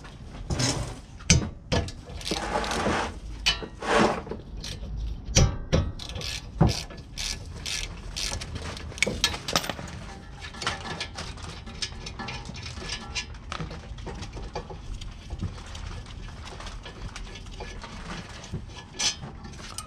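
Ratchet wrench clicking in irregular runs as it backs out the brake caliper bracket bolts, with metallic knocks of the tool against the caliper; busiest in the first half.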